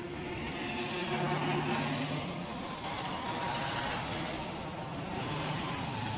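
Street traffic: vehicle engines passing by, a steady mixed rumble with engine hum rising and fading.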